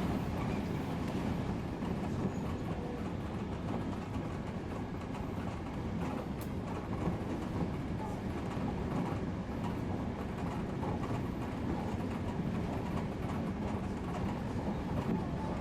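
Odakyu electric train running along the line, heard from inside the leading car: a steady rumble of wheels on rail, with a light click from the track about six seconds in.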